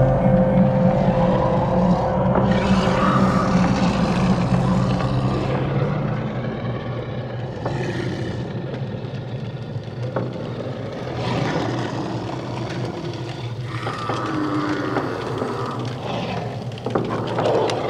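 Designed horror ambience: a steady low mechanical drone layered with swelling scrapes and rumbling noise, a held tone fading out in the first few seconds.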